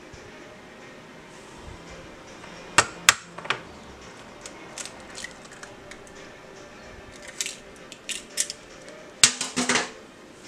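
An egg knocked twice sharply against the rim of a ceramic bowl and cracked open, followed by scattered lighter clicks and a quick run of knocks near the end.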